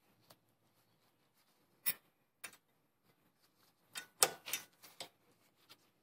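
Metallic clicks and light rattles from gloved hands working the pads and pad-retaining spring in an Infiniti G37S brake caliper. A few single clicks come first, then a louder cluster of clicks about four seconds in.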